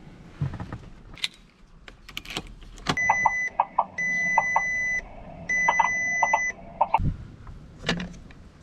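A car's electronic warning chime: three held high beeps, each about half a second to a second long, with quick clicks around them, after a few sharp knocks and clicks.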